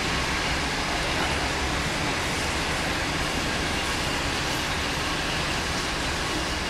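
Passenger train coaches rolling slowly through the station: a steady, noisy rumble without horn or distinct wheel clicks.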